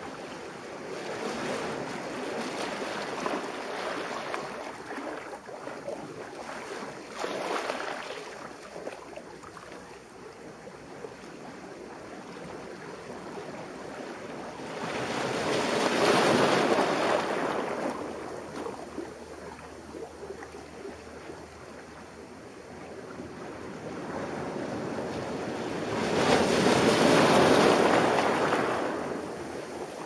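Sea surf surging in and washing over shore boulders close by. Smaller washes come in the first part, then two big surges swell up and fall away, one about half way through and one near the end.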